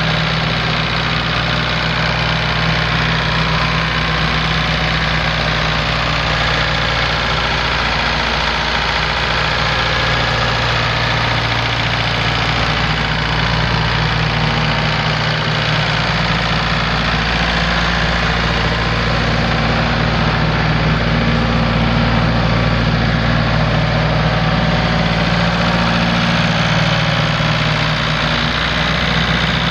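1977 Ford 5600 tractor's four-cylinder diesel engine idling steadily.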